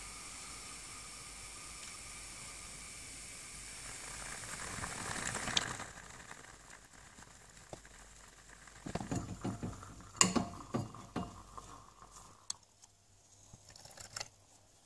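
Stovetop moka pot brewing on a gas burner: a steady hiss that swells into a sputtering gurgle about five seconds in as the last of the water is forced up through the coffee, the sign that the brew is finishing. From about nine seconds on come scattered metallic knocks and clinks as the steel pot is handled and set down on a stainless steel drainboard.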